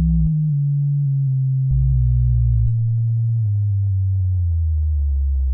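Homemade electronic car sound effect: a low hum of pure tones that steps slowly down in pitch, with a deeper tone added for about a second near two seconds in.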